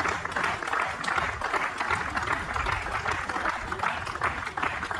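Crowd applauding: steady clapping from many hands.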